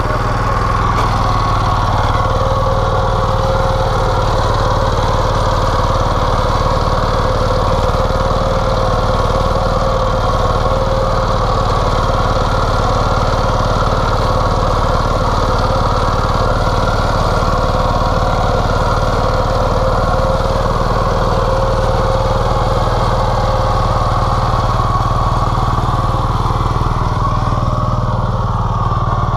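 Tobata two-wheel walk-behind micro tractor's single-cylinder diesel engine running steadily under load as it tills the soil, at an even pitch and level throughout.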